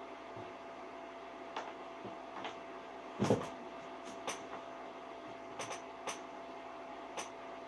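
Two cats play-fighting on a desk: scuffling, with a heavy thump about three seconds in and a scatter of lighter knocks and clicks after it as their bodies and paws hit the desk, keyboard and cables.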